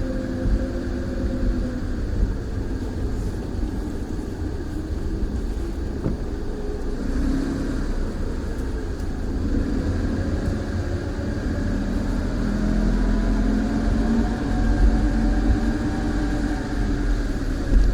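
Car engine running with a low rumble, its pitch rising and falling slowly as the car drives at low speed.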